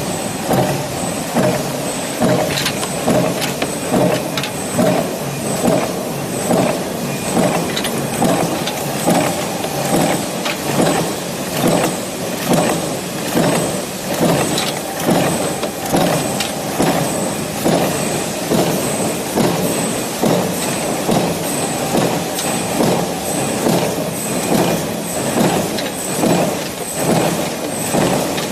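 Mechanical power presses stamping cabinet-hinge parts from sheet metal in a progressive die. They run in an even rhythm of strokes at about one a second over a continuous machine din.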